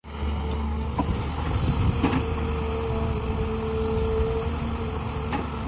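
Tata Hitachi hydraulic excavator working as its bucket swings back from the tipper and digs into a soil pile. The diesel engine runs with a steady low drone and a whine that is strongest in the middle, with a few short knocks about one and two seconds in and again near the end.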